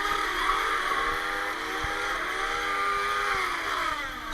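Whine of small electric motors, its pitch rising and falling several times, as when the flywheels of a motorised Nerf blaster are revved up and let spin down.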